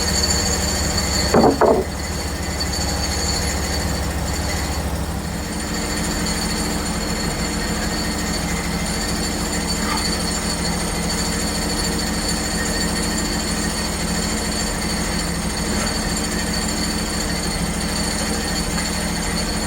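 Portable band sawmill running steadily through a cut in a hemlock log, engine hum with a thin, even whine from the band blade. A short squeal about a second and a half in.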